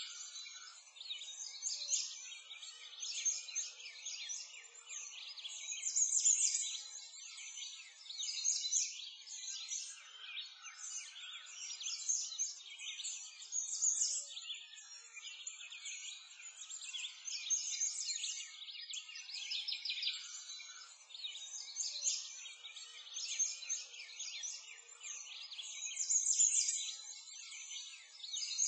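A chorus of small songbirds chirping and trilling together, a dense high-pitched twittering that swells and eases every few seconds.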